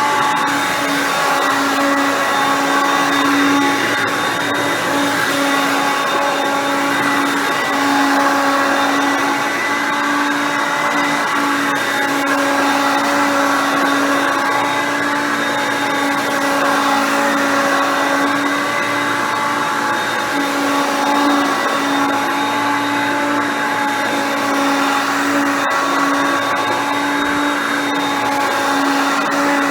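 Hoover Concept Two upright vacuum cleaner, with its 5.6-amp motor, running steadily: an unbroken motor hum with a hiss of air over it.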